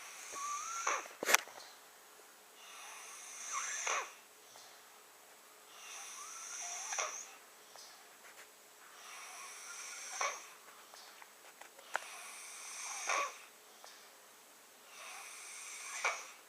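A six-year-old boy snoring in his sleep: six laboured, noisy breaths about every three seconds, some with a whistling tone, and a sharp click about a second in. It is the sound of difficult breathing through a blocked nose with the mouth open, which the parents link to sleep apnea.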